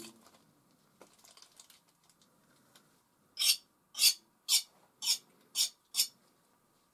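Metal palette knife scraping oil paint across the palette in six quick, evenly spaced strokes, about two a second, after a few fainter scrapes.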